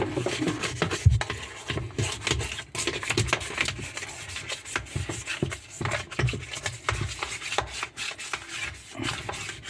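Scrubbing and rubbing in quick, irregular strokes as a washing machine part is scrubbed clean.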